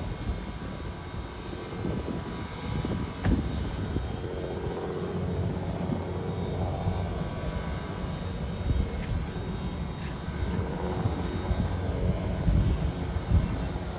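WMSR 1309, a 2-6-6-2 Mallet steam locomotive, running slowly: a steady low rumble with a sharp knock about three seconds in.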